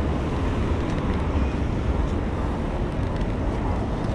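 Steady wind buffeting and low rumble on the microphone of a camera carried on a moving bicycle, with road noise underneath.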